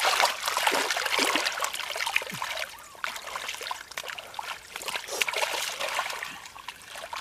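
Hands splashing and sloshing through shallow muddy water, groping in the mud for fish: irregular wet splashes and trickling, heaviest in the first couple of seconds and again near the end.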